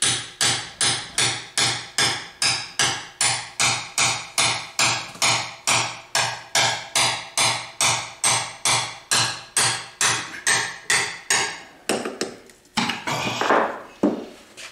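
A steady series of hammer blows, about three a second, on a Quincy 325 compressor pump, knocking at a side cover that was glued on to break it loose. The blows stop about twelve seconds in, followed by a rougher, noisier sound.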